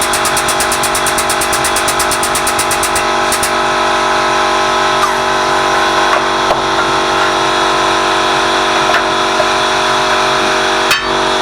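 Workshop air compressor running steadily with a constant motor hum. A fast pulsing hiss stops about three seconds in, and a few light clicks follow.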